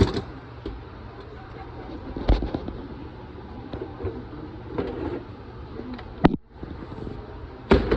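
Irregular knocks and handling noise, with a few sharp clicks scattered through it, as things are moved about in a cramped space.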